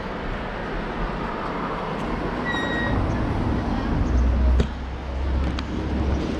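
Street traffic heard from a bicycle, with a heavy vehicle's low rumble building about halfway through. A short high beep sounds a little before the rumble starts.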